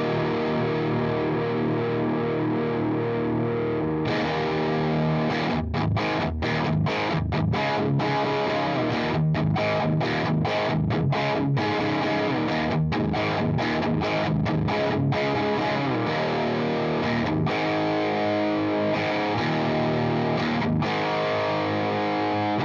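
Electric guitar played through a Demonfx Jan Ray overdrive pedal, a clone of the Vemuram Jan Ray, with a driven tone. Ringing chords turn brighter about four seconds in. Then comes a run of short, choppy chords with sharp stops, and then ringing chords again.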